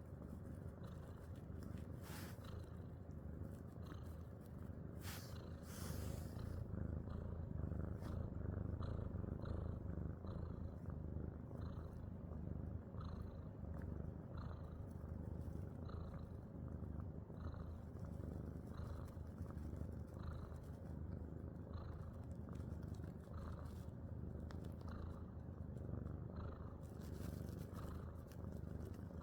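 A sleeping pet snoring steadily: a low rumble with a soft rasp on each breath, repeating about every three-quarters of a second.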